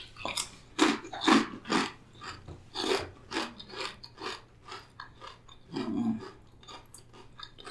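A person chewing crunchy food close to the microphone: a run of irregular crunches, about two or three a second.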